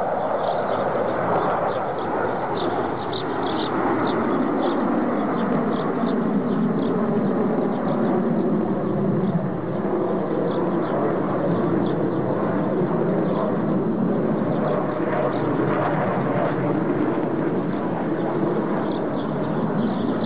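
Fighter jets flying overhead in a pair: steady jet engine noise with slow shifts in pitch.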